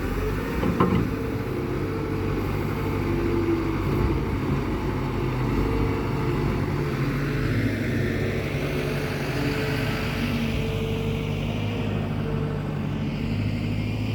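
A vehicle engine running steadily at an even pitch, with a short knock about a second in.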